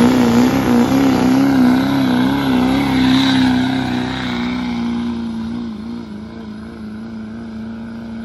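Diesel pickup truck engine held at high revs under load while pulling a sled. Its pitch wavers up and down for the first few seconds, then holds steady as the truck grows gradually fainter.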